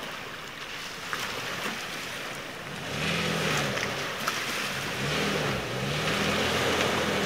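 Toyota pickup truck's engine working under load, its pitch rising and falling again and again from about three seconds in as it hauls a boat on its trailer up a snowy ramp, over wind noise.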